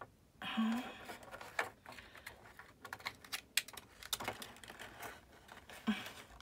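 Accordion-folded craft paper being handled and pressed into a rosette: crinkling with a string of small, irregular clicks.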